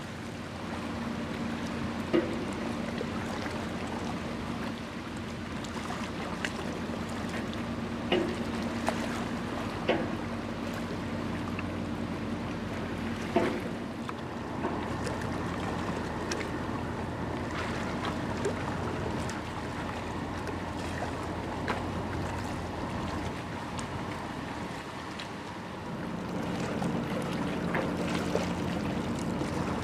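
Steady low drone of the tug-barge Dorothy Ann/Pathfinder's engines while it is underway, with wind and water noise and a few sharp clicks.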